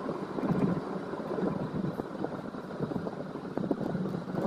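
Steady road and engine noise of a moving car, heard from inside the cabin, with a low hum throughout.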